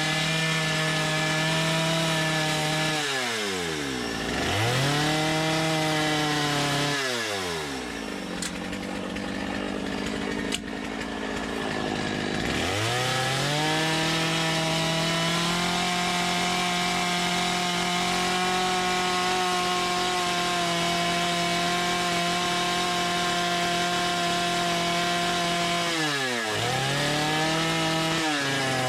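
Two-stroke chainsaw running at high revs while carving wood. The throttle is let off several times, so the pitch drops sharply and climbs back up, and for a few seconds about a third of the way in it runs lower and quieter before revving up again.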